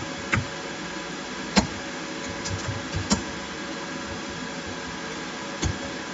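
Computer keyboard keys struck a few times at irregular intervals, about five separate sharp clicks, over a steady background hiss.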